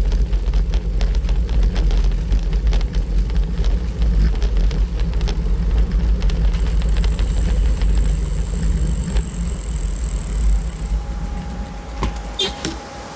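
Wind rumble on the microphone and a steady stream of small rattles and knocks from a bicycle-mounted camera rolling over stone paving. It eases near the end as the bike slows.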